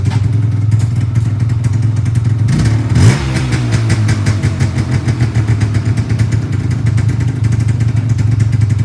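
1979 Yamaha DT250's two-stroke single-cylinder engine idling, blipped once about three seconds in to a quick rev that peaks and falls back to an uneven idle.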